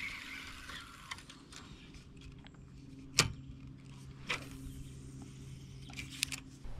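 A few sharp knocks and clicks, the loudest a little after three seconds in and a quick cluster near the end, over a faint steady hum.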